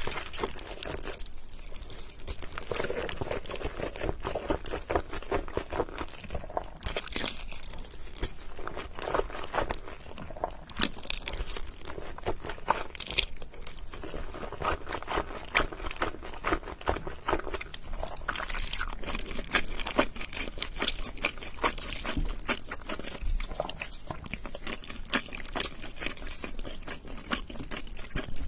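Close-miked eating sounds: a person chewing saucy instant noodles, with a steady run of wet clicks and crunches.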